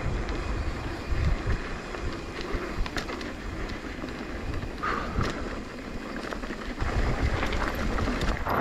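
Wind buffeting the microphone of a camera on a mountain bike riding fast down a dirt downhill trail. Tyres run on dirt under a low gusty rumble, with scattered clicks and knocks from the bike over bumps.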